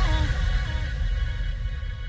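Electronic pop background music: a repeating melodic figure stepping down in pitch over a steady bass pulse, gradually fading.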